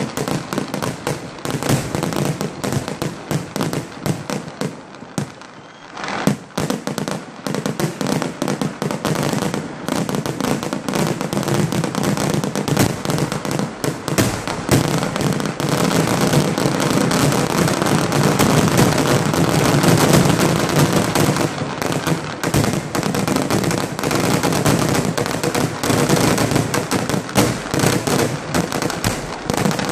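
Fireworks finale barrage: a dense, continuous rattle of bangs and crackling explosions. It eases briefly about five seconds in, then builds to its loudest around two-thirds of the way through.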